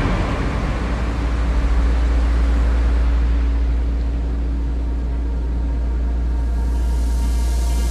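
Rushing hiss of the Bellagio fountains' water spray falling back after the shooter jets fire, fading gradually over a steady low rumble. Music comes in faintly near the end.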